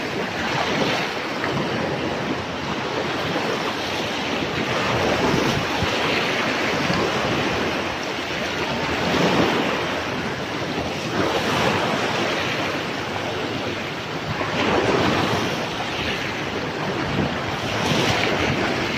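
Wind blowing across the microphone over small waves washing onto a sandy beach, a steady rushing that swells and eases every few seconds.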